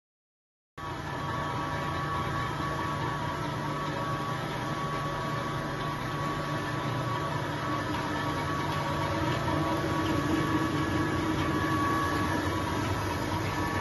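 A 2007 SCS Automaberg Easy Fly front edge cutting machine running steadily: a constant mechanical hum with several steady whining tones, cutting in abruptly about a second in. A lower hum swells slightly about ten seconds in.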